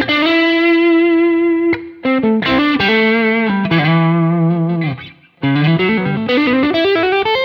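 Electric guitar playing a legato lead line through a Quad Cortex amp modeller with a Jewel compressor in front, blended with the dry signal: the compression smooths the pick attack and lets the notes sustain and sing. A note is held for about a second and a half at the start, with brief breaks about two and five seconds in and a phrase climbing in pitch near the end.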